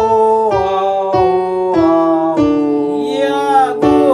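Vocal warm-up exercise: a piano strikes a note or chord about every half second, stepping down a scale, while a voice sings along, holding one note with vibrato near the end.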